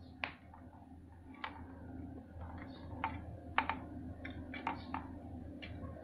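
Irregular sharp clicks and taps of plastic LED bulb parts being handled, the bulb housing and its small circuit board, over a steady low hum.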